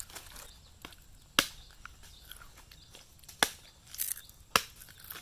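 Sharp chopping strikes on something hard: three loud blows and a lighter one, one to two seconds apart.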